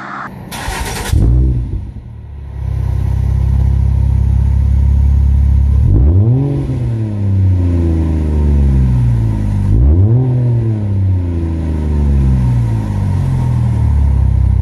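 Ford Fusion Sport's 3.5-litre Cyclone V6 exhaust idling at the tailpipe, revved twice about four seconds apart. Each rev rises quickly and falls back slowly to idle. A short burst of noise comes just before the idle begins.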